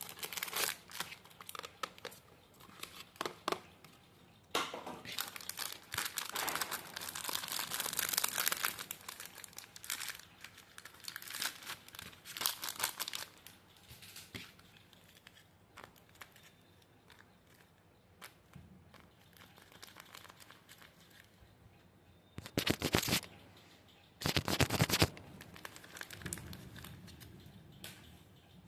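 Paper being handled, crinkled and torn in irregular rustling bursts, with two sharper, louder bursts near the end.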